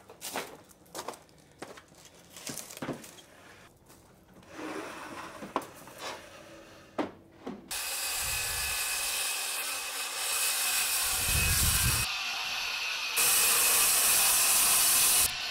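Footsteps and a few knocks of lumber being handled, then a handheld circular saw cutting along a long timber plank, a steady loud run with a faint high whine that jumps abruptly in level twice near the end.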